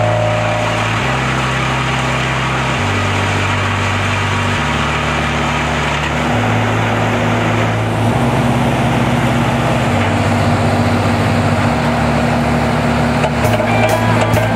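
Background music with a bass line stepping to a new note every couple of seconds, over the steady running of a J.P. Carlton 12-inch disk wood chipper. Near the end come a few sharp cracks as a log goes into the chipper.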